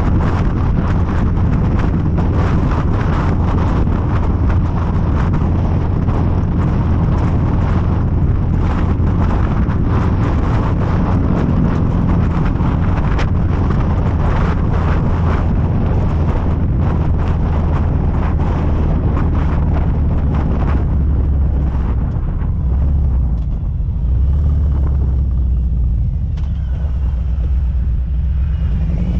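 Harley-Davidson Street Glide's V-twin engine running at road speed, with wind rushing over the microphone. About three-quarters of the way through the wind noise thins as the bike slows, leaving mainly the low engine note.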